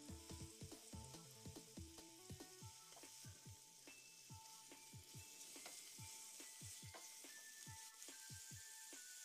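Marinated fish steaks sizzling quietly as they shallow-fry in oil in a nonstick wok and are turned with a spatula. Background music with a steady beat plays underneath.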